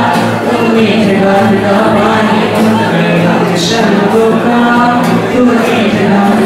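A song: voices singing held, changing notes over music, with the consonants of the lyrics audible.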